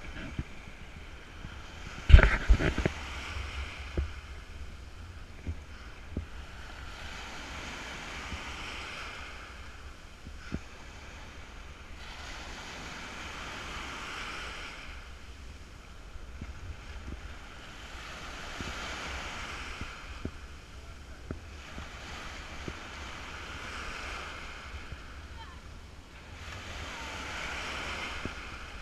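Sea surf breaking and washing up a sandy beach, each wave's wash swelling and fading about every five seconds, with wind rumbling on the microphone. A sharp thump about two seconds in is the loudest sound.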